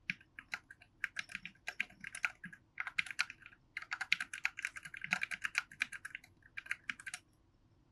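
Typing test on a Quarkeys z40, a 40% ortholinear low-profile keyboard with soldered, lubed TTC low-profile switches: quick, irregular keystroke clicks in runs that stop about seven seconds in.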